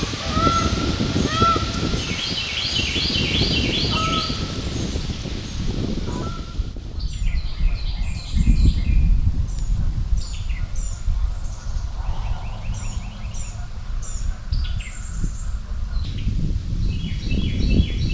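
Several songbirds singing, each phrase a quick run of repeated high notes, heard again and again through the whole stretch. In the first four seconds a few lower calls from a larger bird sound over them, and a low rumble runs underneath.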